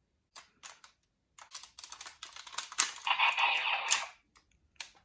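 Folded paper toy being handled and reshaped: a few light clicks, then about three seconds of paper rustling and crinkling, loudest around the three-second mark.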